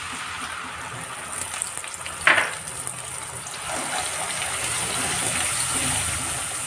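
Ground onion sizzling as it drops into hot oil with whole spices, then being stirred and scraped with a wooden spatula in a non-stick kadhai. A brief knock comes about two seconds in, and the sizzle grows a little louder later on.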